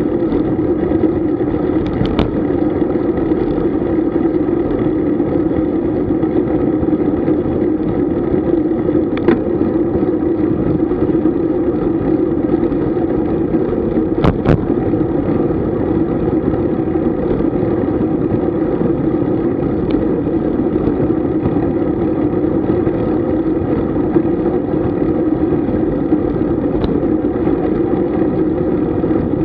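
Steady wind and rolling noise on a camera riding along on a road bicycle, an unbroken drone, with a few brief sharp clicks about two, nine and fourteen seconds in.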